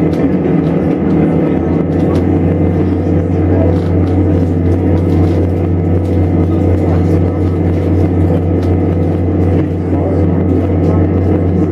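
Live noise-music performance: a loud, steady low droning rumble, a dense wall of sound played from a tabletop setup of electronic devices.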